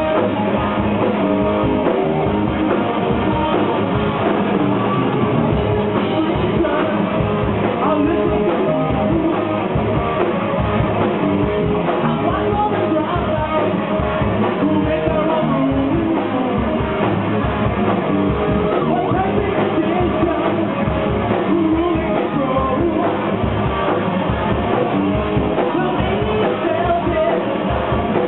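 Live rock band playing loud, with electric guitars, a drum kit and singing.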